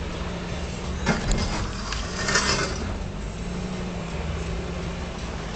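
Toyota Tacoma's 4.0 V6 engine running at low speed as the truck crawls over a rough dirt trail. There is a sharp knock about a second in and a short rushing noise about two seconds in.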